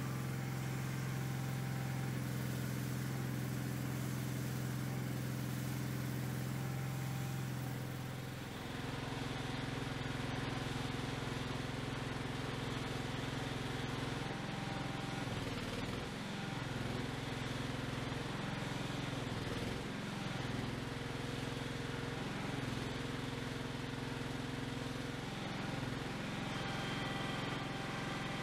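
Cub Cadet garden tractor engine running steadily. About 8 seconds in its note shifts, and later it dips briefly and recovers several times.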